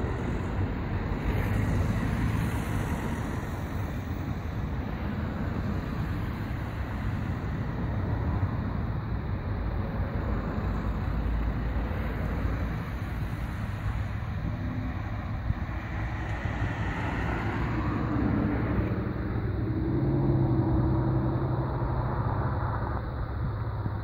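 Douglas DC-3's twin radial engines running as the airliner moves along the runway, a steady drone that swells louder about twenty seconds in.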